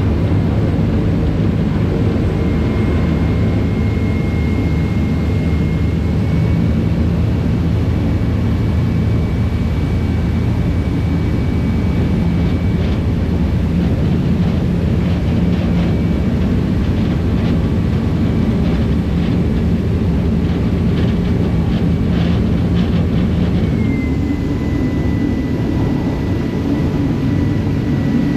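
Steady low drone of a harbour ferry's diesel engines under way, heard from the deck, with a faint high whine over it.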